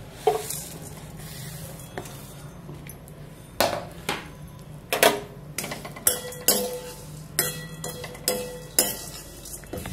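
Steel spoon knocking and scraping against a metal kadhai while stirring vermicelli being roasted in ghee. A couple of separate knocks come first, then from about six seconds in a regular knock about twice a second as the stirring gets going.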